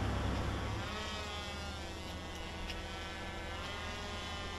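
A steady buzzing drone of a motor, its pitch wavering slightly, over a low rumble in the first second, with a few faint ticks.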